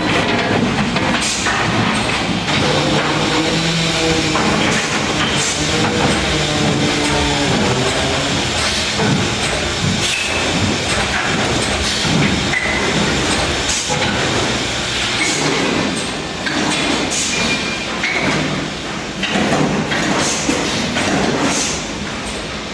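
MPCNC (Mostly Printed CNC) machine running a fast job. Its stepper motors whine in tones that jump from pitch to pitch as the axes change speed, over steady mechanical and cutting noise with scattered sharp ticks.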